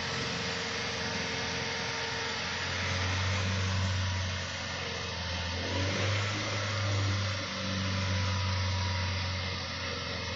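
Hyundai i20 engine running while the car stands in neutral, its speed held fairly steady with a few mild swells and dips as the accelerator is pressed and eased.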